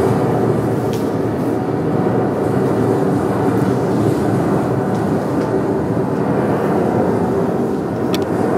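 Field recording of strong wind played as the soundtrack: a steady, dense rumble of wind noise, with a faint click near the end.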